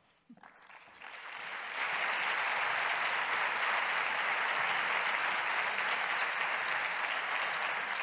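Audience applauding, building up over the first two seconds and then holding steady.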